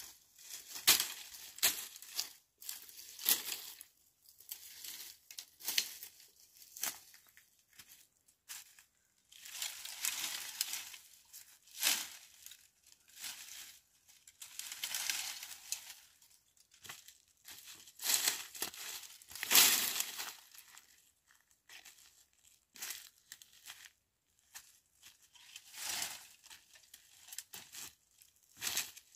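Dry brushwood and twigs rustling and crackling as they are gathered and handled, with steps crunching on dry leaves and stones. It comes in irregular bursts with short pauses between.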